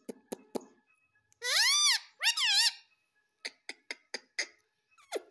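Indian ringneck parrot giving two loud, shrill squawks, each rising and then falling in pitch, with runs of sharp clicks before and after.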